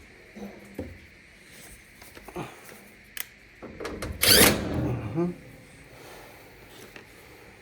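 Dryer parts being handled during reassembly: a few light clicks and knocks, then a loud scraping rustle about four seconds in.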